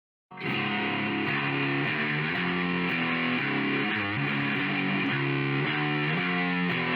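Outro music: distorted electric guitar with a steady beat, starting abruptly a third of a second in after dead silence.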